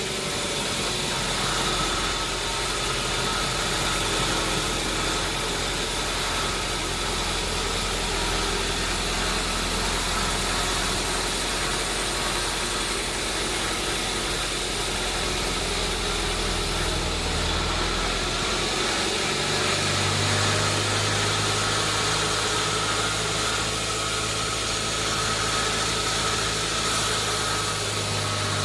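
Sawmill machinery running steadily with a continuous low hum and a noisy hiss; the low hum shifts to a different pitch about two-thirds of the way through.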